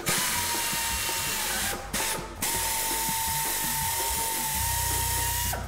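Hand-held drill spinning a reamer bit through a nail hole in a tire tread, running with a steady whine. It breaks off briefly about two seconds in, restarts, and stops near the end.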